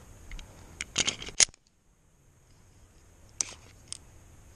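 Sharp metallic clicks of a Glock 19 pistol being handled: a quick cluster of several clicks about a second in, then two single clicks near the end.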